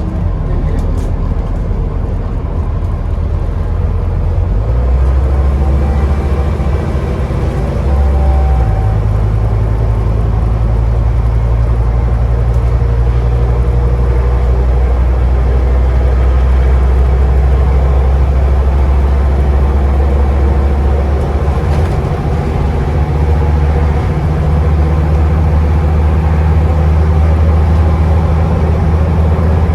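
Scania Enviro 400 double-decker bus engine and drivetrain heard from inside the lower deck while the bus drives along. The low engine drone shifts pitch in steps a few times as the bus changes speed or gear.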